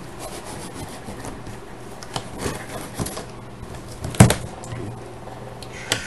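Cardboard shipping box being opened by hand: scraping and rubbing on the cardboard and packing tape, with scattered taps and one louder knock about four seconds in.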